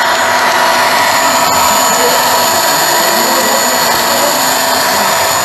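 Sound-fitted DCC model diesel locomotive's engine sound running steadily: a dense drone with several steady whining tones.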